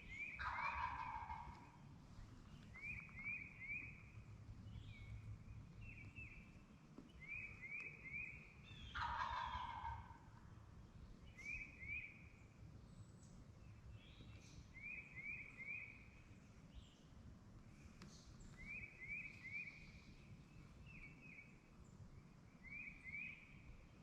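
Wild turkey gobbler gobbling twice, about a second in and again about nine seconds in. Between the gobbles a small bird repeats short three-note phrases.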